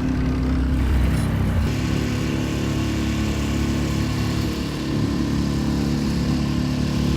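Motor of a small hire boat running steadily under way, with a shift in its note about two seconds in.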